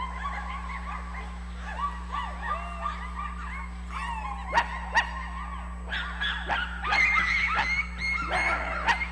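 Several puppies yipping and whimpering at once in short, high, bending cries that grow busier and louder over the last few seconds. Two sharp knocks come about half a second apart a little past halfway. A steady low electrical hum runs underneath.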